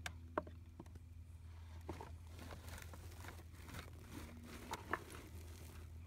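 Dirt and small stones pattering and ticking on the perforated metal screen of a homemade relic sifter, with a few sharp clicks. A steady low hum runs underneath.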